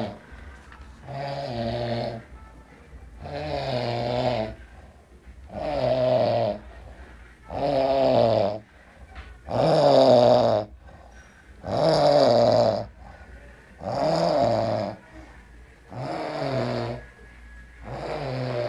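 A sleeping man snoring steadily, about one snore every two seconds, each lasting about a second, loudest around the middle.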